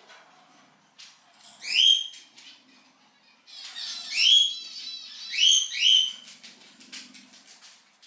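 Cockatiel chick begging calls, played from a recording to coax a chick that refuses food: three loud bursts of high, arching chirps, each burst a few calls long, a second or two apart.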